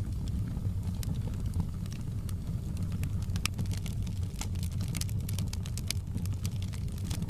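Wood fire in a fireplace crackling, with irregular sharp pops and snaps over a steady low rumble of burning. The pops come more thickly in the middle.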